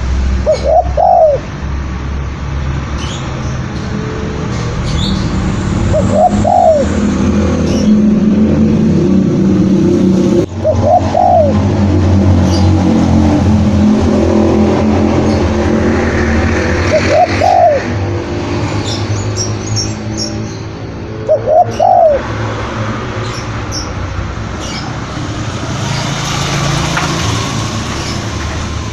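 Spotted doves cooing, a call about every five seconds, over a steady low background of more cooing, with small birds chirping faintly above.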